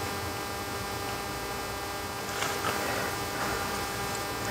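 Steady electrical mains hum with several steady overtones, with a few faint soft handling sounds in the second half.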